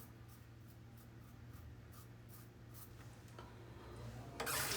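Double-edge safety razor scraping over lathered stubble in short, faint strokes, several a second. Near the end a water tap starts running.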